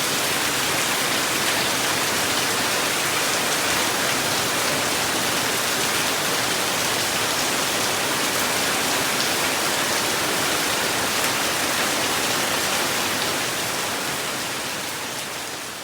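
Steady rain falling: a dense, even hiss with no separate drops standing out. It begins to fade out over the last couple of seconds.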